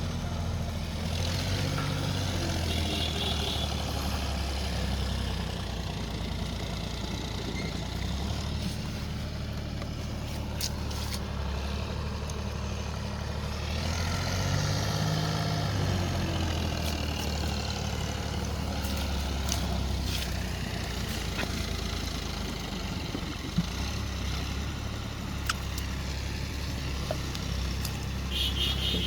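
An engine running steadily with a low hum, its pitch rising and falling briefly twice.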